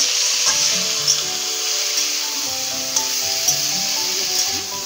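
Background instrumental music over spinach sizzling in hot oil in a kadai, with a metal spatula scraping and knocking against the pan a few times.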